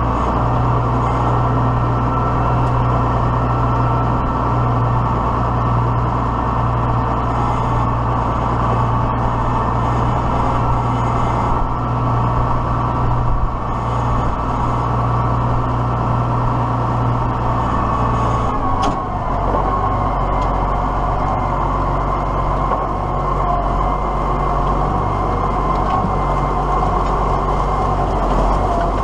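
Diesel tractor engine running steadily. Its note changes about 19 seconds in, with a brief scraping noise at the change.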